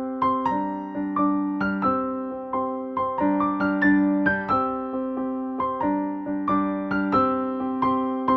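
Background music: a piano or electric piano playing a gentle, evenly paced melody, a note struck about every half second and left to ring.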